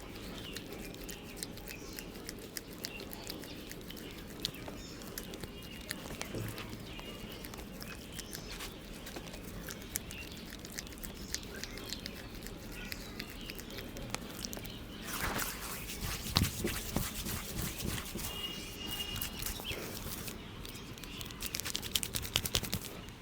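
Barber's hands tapping and rubbing on a customer's head and neck during a head massage: a steady patter of light slaps, with faster, louder runs of taps about two-thirds of the way in and again near the end. A few short bird chirps are heard.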